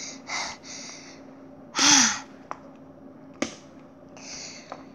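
A child's voice making quick breathy puffs, then a loud breathy gasp about two seconds in, followed by two sharp clicks and fainter breaths.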